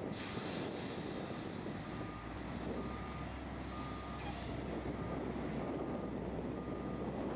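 Diesel engines running as a bottom dump semi-trailer discharges its load, with a back-up alarm beeping about once a second. Short bursts of hiss come near the start and about four seconds in.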